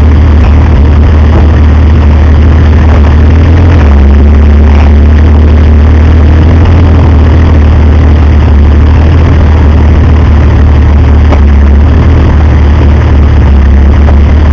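A 4WD wagon's engine running loud and low as the vehicle crawls down over rocks into a creek bed, its note shifting about four seconds in.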